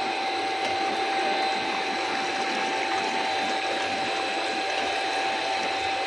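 PS wall panel extrusion line running: a steady rushing hiss of machinery and water with a constant high whine through it.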